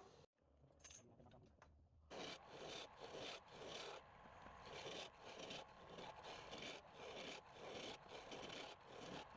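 A hand tool scraping across wood in repeated back-and-forth strokes, about two a second, starting about two seconds in.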